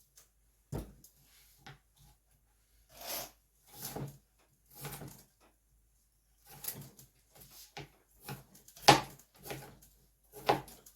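Pear being cut and handled on a cutting board: irregular knocks and short scrapes, the loudest about nine seconds in.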